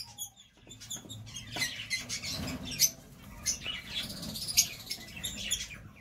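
Several lovebirds chirping: a rapid, busy run of short, high twittering chirps.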